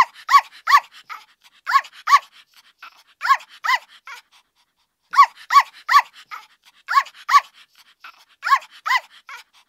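Fisher-Price toy puppy's electronic barking: short high-pitched yips, mostly in pairs, repeating every second or so with a short pause midway.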